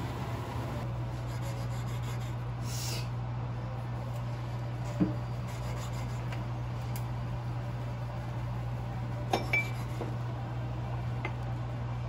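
A kitchen knife slicing a rolled egg omelette on a wooden cutting board, with a few short knocks as the blade meets the board: the loudest about five seconds in, two more close together near nine and a half seconds. A steady low hum runs underneath.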